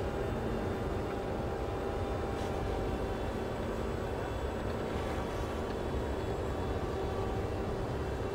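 Distant electric brushless RC plane, its motor and propeller giving a steady drone in flight, over a constant low rumble of wind on the microphone.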